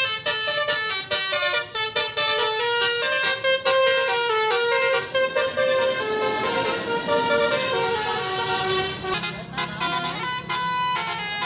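Bus 'telolet basuri' multi-tone musical air horn playing a quick melody of stepped notes, with a longer held chord in the middle and a few sliding notes near the end.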